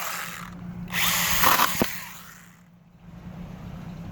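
Hand-pulled pocket chainsaw rasping through a branch in back-and-forth strokes: one stroke ends about half a second in, and another runs for about a second from the one-second mark, with a sharp knock near its end.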